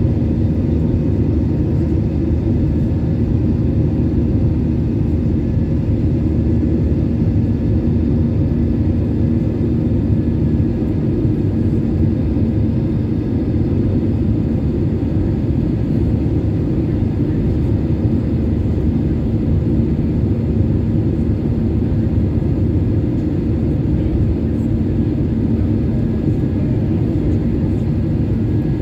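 Steady cabin noise of a jet airliner climbing after takeoff, heard from a window seat over the wing: the turbofan engines at climb power and rushing air make a deep, even rumble, with a faint steady hum on top.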